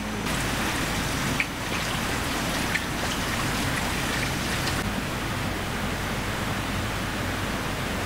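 Steady hiss of falling rain, brighter for the first five seconds, with a couple of small sharp drip-like ticks.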